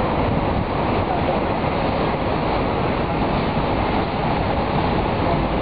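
Harbour wharf ambience: a steady rumbling noise with no distinct events.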